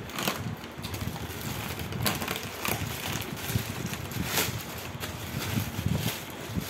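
Plastic wrapping rustling and crinkling as hands tear it off a small packet, with irregular crackles and low rumbling handling noise.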